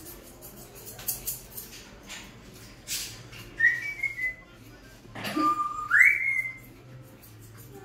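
A small dog whining in two short high-pitched calls, the second holding a lower note and then sliding up to a higher one. A few sharp clicks come before them.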